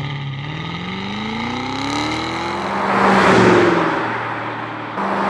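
Car engine accelerating, its pitch rising steadily for about three seconds, then a loud rushing pass-by. A steady engine note starts again about five seconds in.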